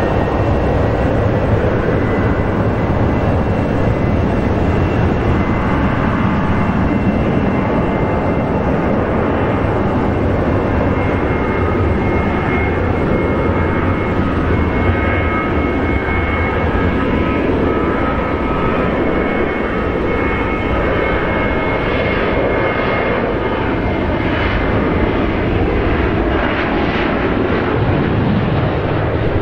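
Boeing 737 jet engines at takeoff power during the takeoff roll and lift-off: a loud, steady rumble with a thin steady whine on top, growing rougher and rattling over the last several seconds.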